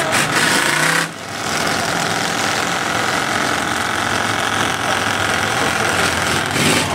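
4x4 mud-bog race truck engine running steadily, with a short break about a second in.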